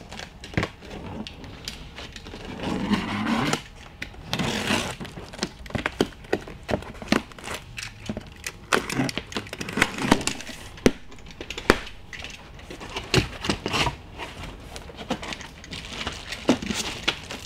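Unpacking a cardboard box of plastic-wrapped arrow shafts: plastic sleeves crinkling and rustling, with many irregular knocks and clicks as the packs of shafts are pulled out and handled.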